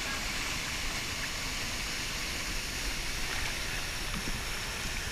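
Waterfall pouring into its plunge pool: a steady rush of falling, churning water.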